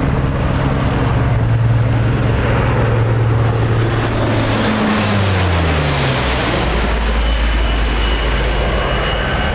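A de Havilland Canada Dash 7's four PT6A turboprop engines and propellers run loud and steady in a low flypast. About five seconds in, the propeller tone falls in pitch as the airliner passes overhead and moves away.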